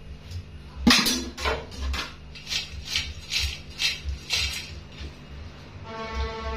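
Stainless steel pot of fries clattering as it is handled: one loud clank about a second in, then about eight sharp rattling strokes, roughly two a second. Music comes in near the end.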